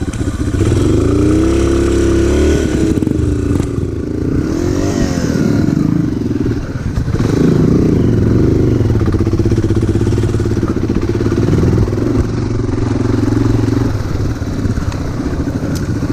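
Motorcycle engine running, its pitch rising and falling several times in the first half as the throttle is worked, then holding steadier.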